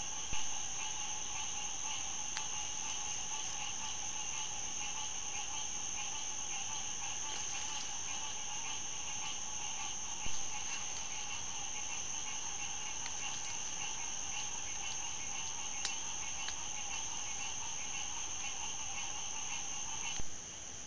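Steady night chorus of crickets and other insects, several high trills layered together. Three short clicks, about ten seconds apart, where each new trail-camera clip begins.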